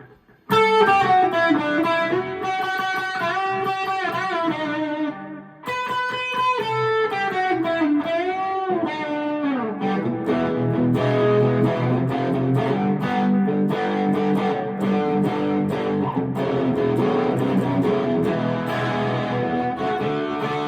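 Electric guitar played loud through a Joyo Taichi overdrive pedal and a Harley Benton amp. First come sustained lead notes with bends and vibrato, broken by a brief gap about five seconds in, the second note sliding down near nine seconds. Then come overdriven chords played steadily to the end.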